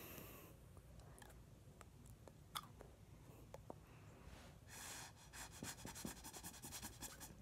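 Near silence: faint breathing through a plastic drinking straw held in the mouth, with a soft hiss of breath about halfway through and a few small clicks.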